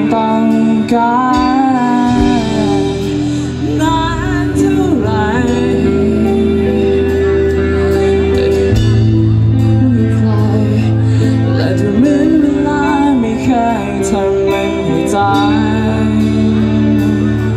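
Live rock band playing through a PA: a male voice singing with amplified guitars, sustained low bass notes and a drum kit with cymbals.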